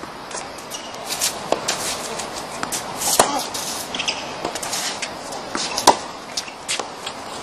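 Tennis balls being struck with rackets and bouncing on a hard court: a string of sharp pops at an uneven pace, the loudest about three and six seconds in.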